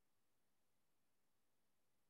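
Near silence: the shared-screen audio has dropped to nothing.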